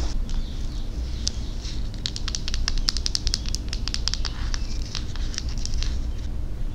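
A quick, irregular run of light clicks from long acrylic fingernails tapping a small wooden toy cosmetic bottle, starting about two seconds in and stopping near the end, after soft rustling of a fuzzy knit headband being handled.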